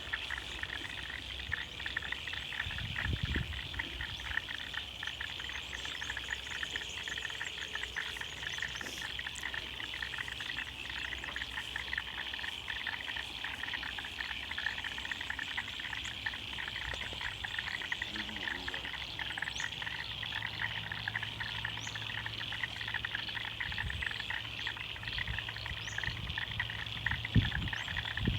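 A dense chorus of many frogs calling at once, a steady, rapidly pulsing high trill that carries on without a break.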